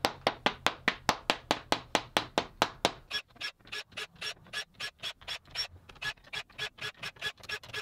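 A white plastic mallet taps aluminum T-track down into its groove in a plywood tabletop, in quick, even strokes about four or five a second. About three seconds in the taps turn softer and pick up a faint metallic ring.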